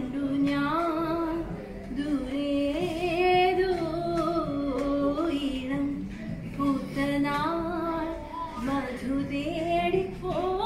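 A woman singing a song, holding long notes that glide from pitch to pitch.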